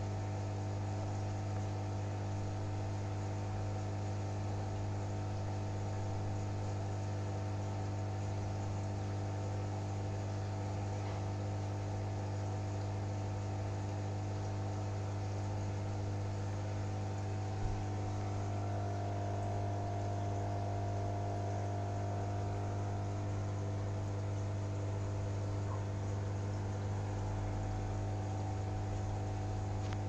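Aquarium filter pump running with a steady electrical hum, strongest low around 100 Hz, with one short faint tick about halfway through.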